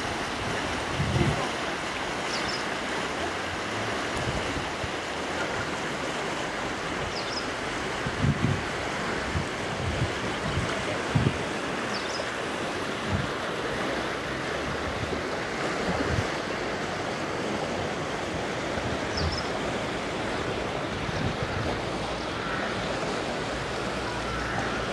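Steady rushing of a swollen, flood-high river, with low thumps of wind gusting on the microphone now and then.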